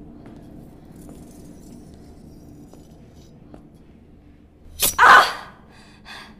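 Faint low hum, broken about five seconds in by a sudden loud burst of noise lasting about half a second.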